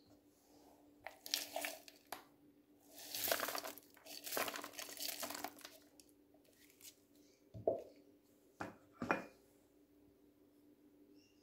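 Rustling and crinkling of kitchen handling as chopped green onions are added to minced chicken in a plastic mixing bowl, in two stretches, followed by three short sharp knocks. A faint steady hum runs underneath.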